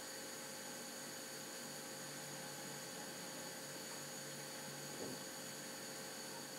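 Faint, steady electrical hum and hiss with a few steady high-pitched whines, and a brief faint blip about five seconds in.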